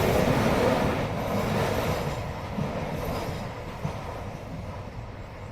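Freight train running on the rails, its wheel rumble and clatter fading steadily as it moves away.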